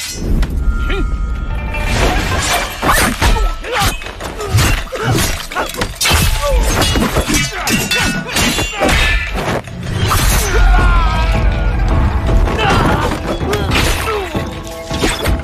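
Sound effects from an animated sword fight: a rapid series of blade clashes and hits over dramatic action music.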